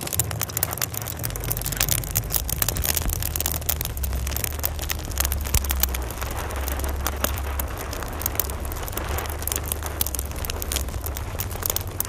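Glitchy electronic sound from an installation soundtrack: a dense, irregular crackle of clicks over a steady low drone. The drone gets fuller about a second in.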